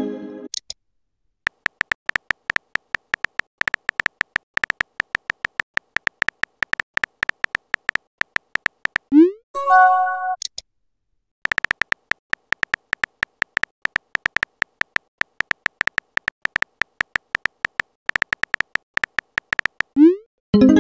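Texting-app typing sound effect: rapid runs of keyboard clicks as a message is typed. A short rising whoosh and a brief chime of a few notes mark a message being sent, about nine seconds in and again near the end.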